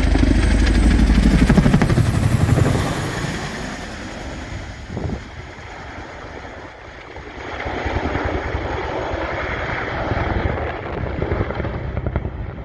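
Boeing CH-47 Chinook tandem-rotor helicopter flying low overhead: a loud rotor beat that drops in pitch as it passes over, fades as it banks away, then grows louder again about eight seconds in.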